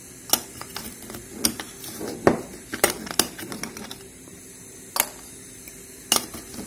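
Metal spoon scooping coarse salt from a glass jar and tipping it into a faceted drinking glass: irregular sharp clinks of metal on glass, about seven, with the spoon scraping through the salt in between.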